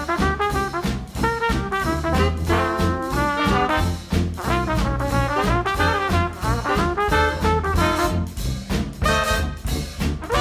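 Upbeat background music led by brass horns over a steady beat.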